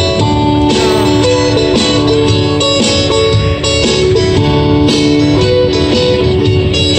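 Two acoustic guitars strumming and picking together in a steady instrumental passage, with chords ringing on.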